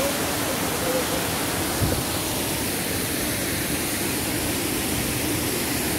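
Steady rush of a waterfall and the stream's rocky cascades, a continuous even roar of falling water.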